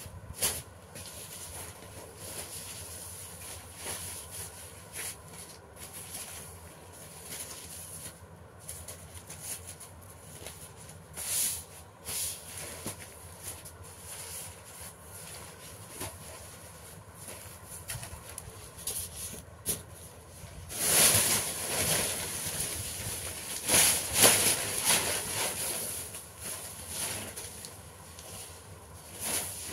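Paper rustling and crinkling as sheets are handled and folded by hand, in short scattered crackles over a steady hiss, growing louder and busier about two-thirds of the way in.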